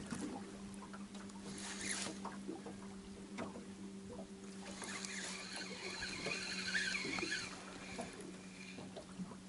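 Small waves slapping and lapping against a boat's hull, with scattered splashes, over a steady low hum. A high, squeaky chattering sound comes in for a couple of seconds about halfway through.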